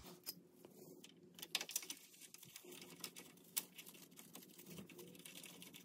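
Faint, irregular light clicks and taps of metal parts being handled: the Dana 44 differential's bearing caps and their bolts being fitted back onto the carrier by hand.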